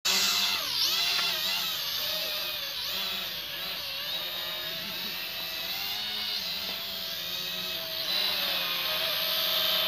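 Small camera quadcopter drone in flight: its four small motors and propellers make a high, buzzing whine that wavers up and down in pitch as it manoeuvres.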